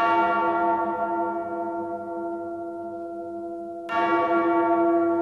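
A large bell struck twice, once at the start and again about four seconds later, each strike ringing out with several steady tones and slowly fading.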